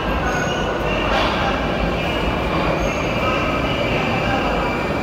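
Moscow Metro train running through the station: a steady, loud rumble of wheels and motors with a thin wheel squeal high above it.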